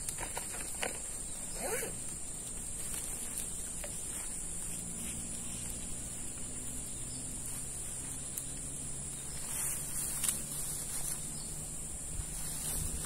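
Steady high-pitched drone of insects in the swamp, with a few light clicks and rustles about a second in and again near the ten-second mark.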